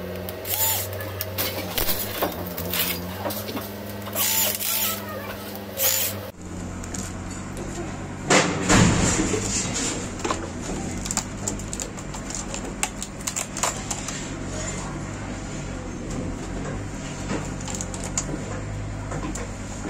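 Scattered clicks, knocks and clatter of laptop parts, plastic and metal, being handled and pried apart, over a steady low hum. The loudest clatter comes about 8 to 9 seconds in.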